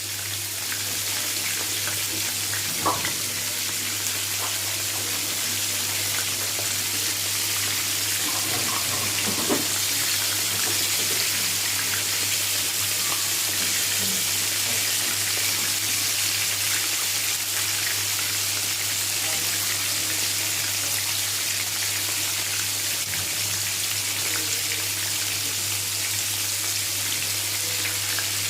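Flour-coated chicken leg pieces deep-frying in hot oil: a steady sizzling hiss with a few faint pops, over a low steady hum.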